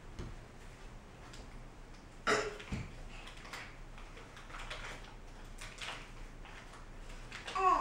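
A crawling baby's hands patting and scuffing on a hard kitchen floor: light, scattered taps, with a louder short sound about two seconds in and a brief voice-like squeak near the end.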